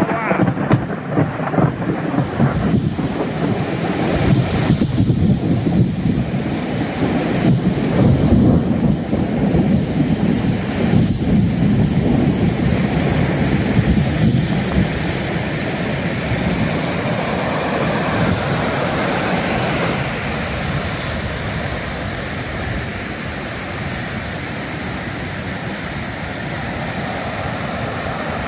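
Muddy flash floodwater rushing over its banks in a thunderstorm, with rain and a low rumble. The rumble is strongest in the first half and eases after about fifteen seconds.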